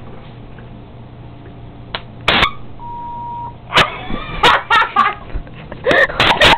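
A person's short wordless cries and gasps in several bursts, with a short steady censor beep tone about three seconds in.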